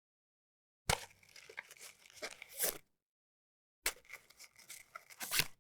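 Cigarette pack handled and a cigarette pulled out, twice: each take starts with a sharp tap, then paper rustling and rubbing that grows louder near its end.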